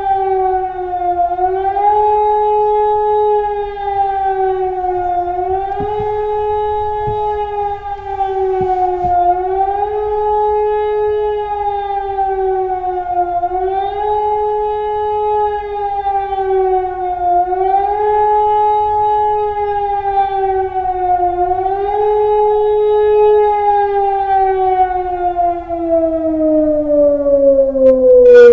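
Civil defence siren sounding the test of the German public warning signal: a loud howling tone that swells up and down in pitch about every four seconds. Over the last few seconds it winds down in one long falling glide.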